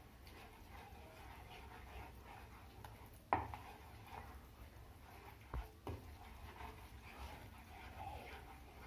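Spatula stirring and scraping thick milk in a frying pan while milk powder is shaken in from a steel cup. There is a sharp clink about three seconds in and two lighter knocks just under six seconds in, from the spatula or cup hitting the pan.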